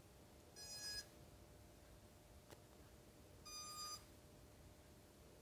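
Two short, faint electronic tones from the micro drone's 1103 brushless motors, each about half a second long, about a second in and again near four seconds, as the motors are driven from the SpeedyBee app for a direction test. A tiny click falls between them.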